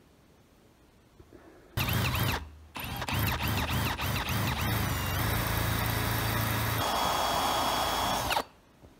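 Electric drill boring a hole through a metal bolt clamped in a vise, the bit cutting metal. It starts about two seconds in, stops briefly, then runs steadily with a wavering squeal before cutting off near the end.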